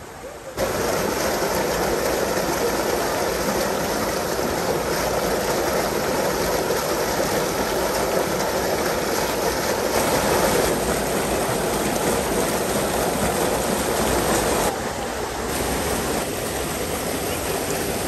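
A small waterfall cascading over boulders into a rocky stream: a steady rushing of water that starts suddenly about half a second in and drops slightly in level near the end.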